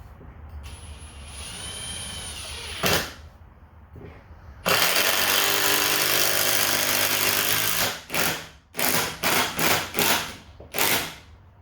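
Hammer drill driving a three-inch deck screw into lumber. A short whir and a click come first, then a steady run of about three seconds, then several quick trigger bursts that seat the screw head a little below flush.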